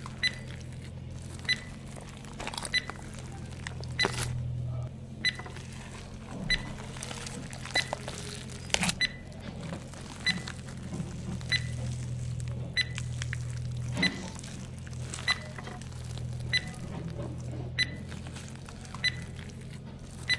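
Heart-monitor beep sound effect: a short high beep repeating evenly about every 1.25 seconds, over a low steady hum.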